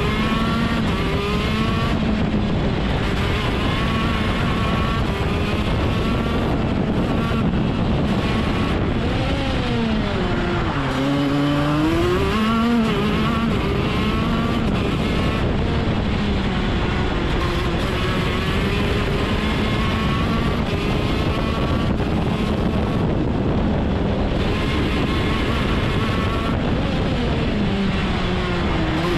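KZ2 shifter kart's 125cc two-stroke engine at racing speed, its revs repeatedly climbing and dropping back with the gear changes. About ten seconds in the revs fall steeply for a slow corner, then climb again.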